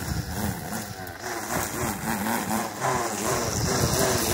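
Corded electric string trimmer running, its motor pitch rising and falling as the line cuts into the plants.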